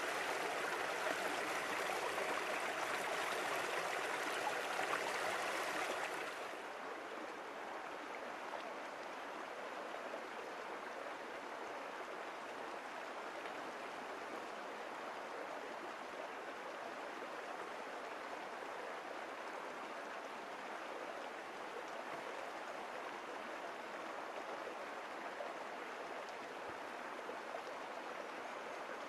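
A river rushing over its bed, a steady even rush of water. It is louder and brighter for about the first six seconds, then drops suddenly to a quieter, softer rush.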